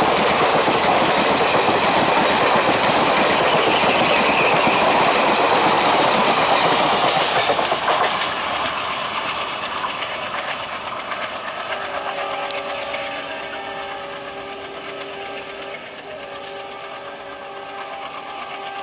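Express passenger train coaches running past at speed, their wheels clattering over the rails in a loud rush. The sound drops away about eight seconds in as the last coach recedes, and fainter steady tones linger after.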